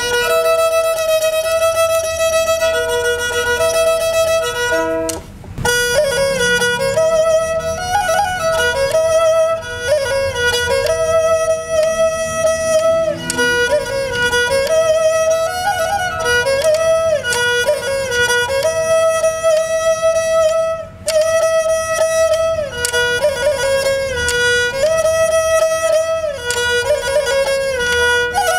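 Nepali sarangi, a bowed folk fiddle, playing a melody over a steady drone from an open string. The bowing breaks off briefly twice, about five seconds in and again near 21 seconds.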